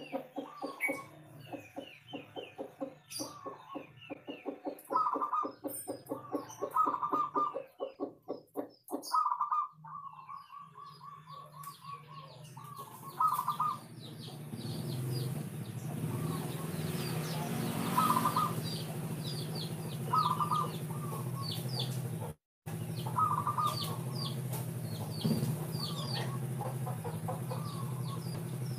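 Zebra dove (perkutut) cooing: rapid runs of soft staccato coos at first, then repeated phrases of higher coos over a steadier background hiss from about halfway, with short high chirps in the background.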